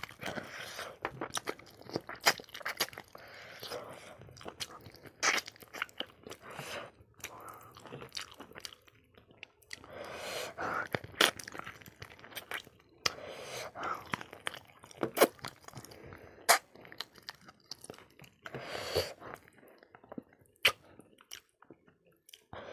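Close-up eating sounds of a person biting and chewing spicy pickled pork trotter off the bone: irregular sharp crunches and clicks between stretches of wet chewing.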